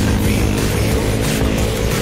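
Background music, with the engine of a small ATV running underneath it.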